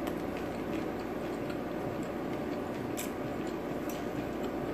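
Quiet chewing of a soft rice-paper spring roll: a few faint wet mouth clicks over a steady low background hum.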